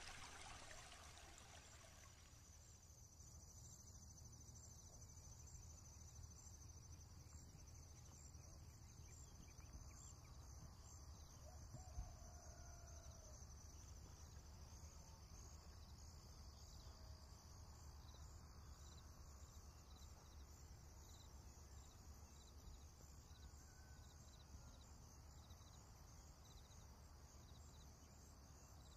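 Faint outdoor ambience: a steady high insect trill with small regular pulses over a low hum, with a couple of faint short calls. A pouring, trickling sound fades out in the first two seconds.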